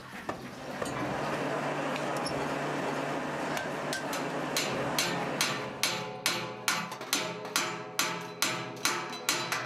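Hand hammers striking metal in a craftsmen's market: steady background noise at first, then about halfway in a run of regular, ringing strikes at about three a second.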